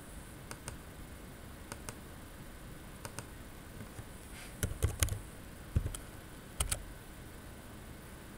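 Computer mouse button clicking in three pairs of press-and-release clicks, then a short run of louder keyboard keystrokes between about four and seven seconds in as a word is typed.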